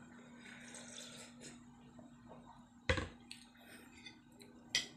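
A plastic tumbler set down on a table with a sharp knock about three seconds in, then a second, lighter knock near the end, over a faint steady hum.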